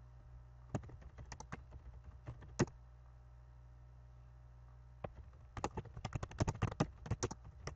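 Typing on a computer keyboard: a few scattered keystrokes in the first few seconds, a pause, then a quick run of keystrokes near the end.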